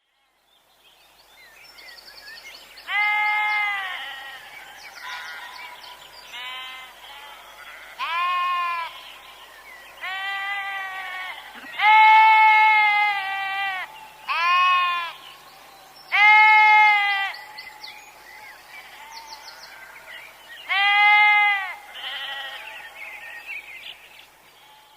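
Farm animals bleating: a series of about eight drawn-out bleats, each roughly a second long, spaced irregularly over a faint rural background.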